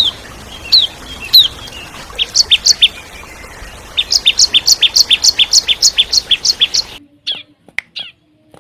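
Bar-winged prinia (ciblek) calling: a few single downslurred chirps, then a fast, even series of sharp high notes at about five a second, over a steady background hiss. About seven seconds in the recording cuts to a quieter track with a few scattered sharp chirps.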